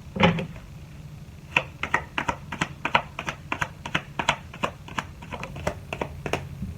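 A quick, uneven run of light, sharp clicks and taps, about four or five a second, like keys being typed. One louder tap comes just after the start.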